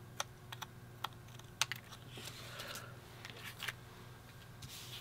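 Small scissors snipping through a strip of scrapbook paper, a string of sharp clicks, followed by the soft rustle of the paper strips being handled.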